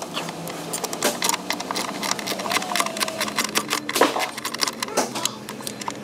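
Hand ratchet clicking in quick runs of strokes as an ignition coil bolt is backed out.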